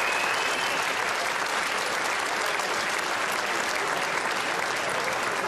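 Studio audience applauding steadily, a dense, even clapping.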